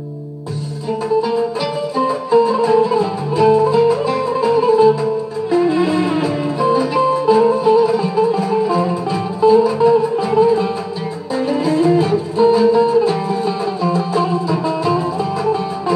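Instrumental music: a fast plucked-string melody over a steady bass line, coming in about half a second in after a held chord, with no singing.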